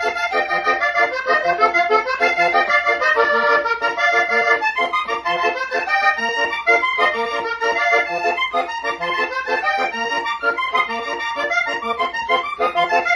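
Accordion playing a fast melody of quickly changing notes over a steady rhythmic accompaniment.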